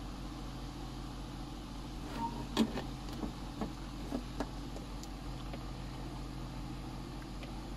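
Steady low machine hum, with a handful of light clicks and taps from about two to four and a half seconds in, as the circuit board is handled and knocked against the metal chassis and tools.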